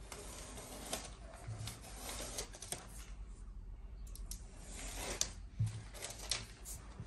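Backing being peeled off strips of double-sided tape while a stiff carpet section is handled and rubbed down, giving crisp rustling and tearing with a few sharp clicks and two soft thumps.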